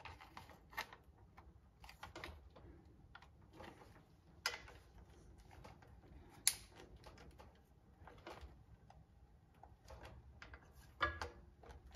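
Hand ratchet tightening the bolts of a metal adapter plate: faint, scattered clicks, with sharper clicks about four and a half seconds in, around six and a half seconds, and again near the end.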